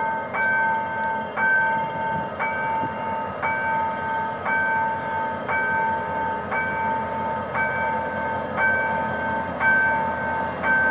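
Level-crossing warning bell ringing about once a second, each stroke ringing on until the next, over the steady running noise of a GM GT22CW-2 diesel locomotive hauling a passenger train slowly toward the crossing.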